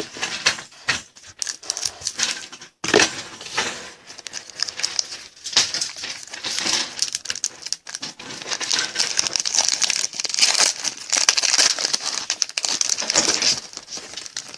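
A trading-card pack's wrapper being torn open and crinkled, with irregular crackling and rustling throughout.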